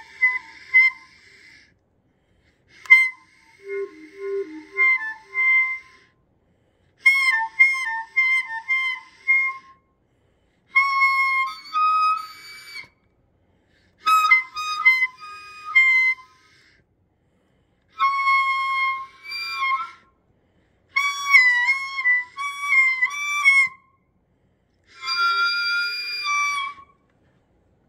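Scuba gear giving off clarinet-like pitched tones, a few wavering notes at a time, in bursts of two to three seconds that come back about every three and a half seconds with short silences between.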